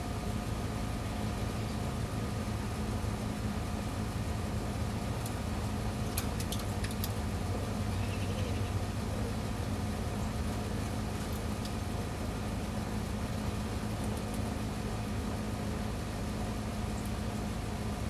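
Steady low mechanical hum with several constant tones. A few faint clicks come about six seconds in, and a short faint chirp near the middle.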